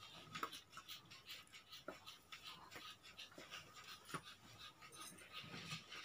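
Silk thread being wound round a folded cardboard piece: a faint, quick run of light rustling, scratching strokes as each turn is pulled over the card.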